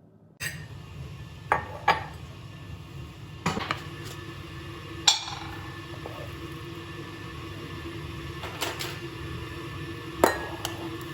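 Kitchenware clinking and knocking: about six separate sharp hits of utensils or dishes over a steady low hum that starts about half a second in.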